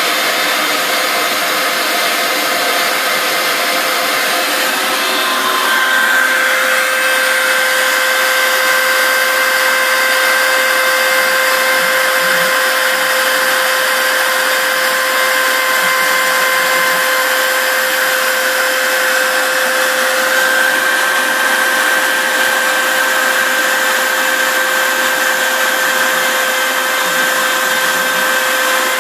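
A router spindle running steadily on a home-built CNC machine as it cuts foam, together with a shop vac drawing the dust off through a hose. A steady high whine sets in about six seconds in and holds.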